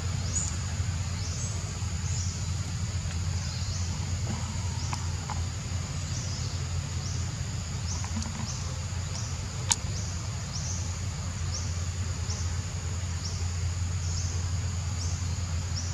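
Insects buzzing high in a repeating pulse, about one a second, over a steady low hum, with a single sharp click about ten seconds in.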